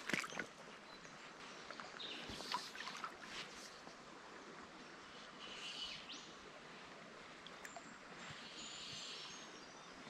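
Quiet creek-side ambience: a faint, steady trickle of water with a few soft clicks and rustles, and faint bird calls in the second half.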